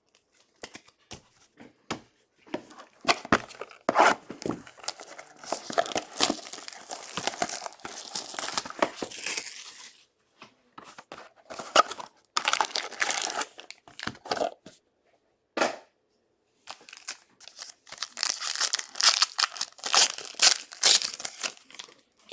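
Trading card pack wrappers being torn open and crinkled by hand, in three long bouts of tearing and rustling with light clicks and taps between them.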